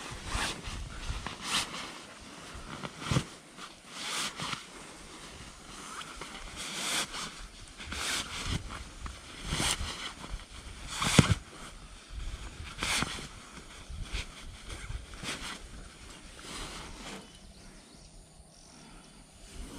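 Nylon sleeping bag rustling and swishing in irregular bursts as it is rolled tight and compressed by hand, with one sharper bump about halfway through.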